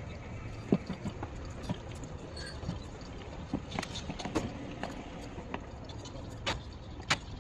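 Scattered short knocks and clicks over a steady low hum, with a cluster of them midway and two sharper knocks near the end.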